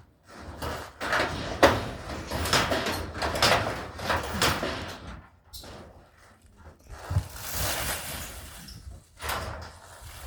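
Old barn's wooden boards and timbers knocking, creaking and scraping as they are worked loose during demolition, with one sharp bang about a second and a half in.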